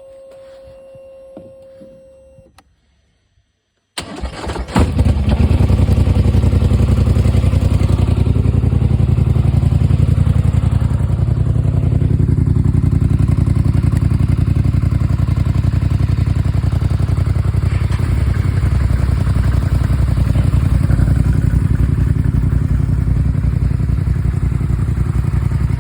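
A steady electronic tone for about two and a half seconds, then a short pause, then a 1000 cc twin-cylinder ATV engine starts about four seconds in and settles into a loud, steady run on its exhaust.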